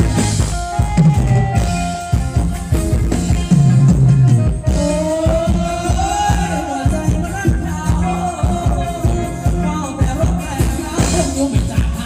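Live Thai ramwong dance music from a band with drum kit, electric guitars and keyboard, playing at a steady beat.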